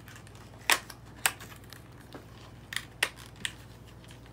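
Crackles and snaps of a small screen-protector package being handled and opened by hand: about six sharp, separate sounds, the loudest a little under a second in.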